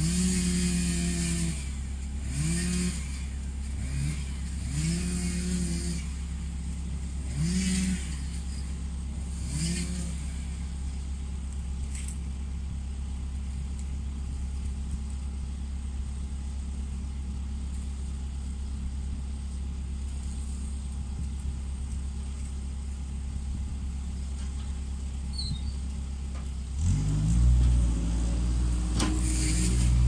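Bobcat skid-steer loader's diesel engine running, with five short revs that rise in pitch, about one every two and a half seconds, then settling to a steady run. Near the end it revs up louder as the loader moves off.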